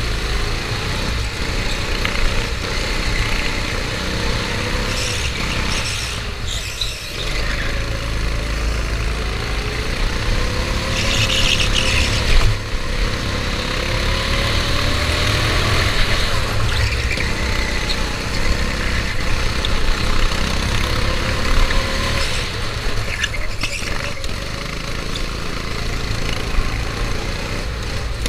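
Go-kart engine running hard, its note rising and falling over and over as the kart accelerates and brakes through the corners, over a steady low rumble. A brief high squeal about eleven seconds in.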